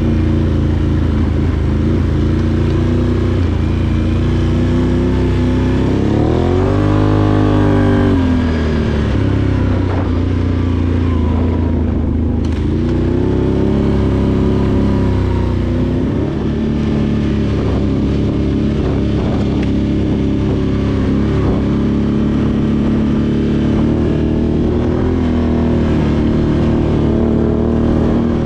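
Can-Am Outlander 850 XT ATV's Rotax V-twin engine running, its revs rising and falling about seven seconds in and again around fourteen seconds.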